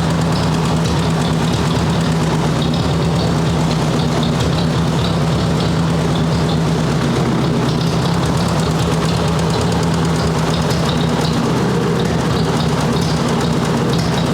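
Ford 851 tractor engine idling steadily, with an even low hum and no change in speed, running so the freshly installed hydraulic pump can push air out of the system.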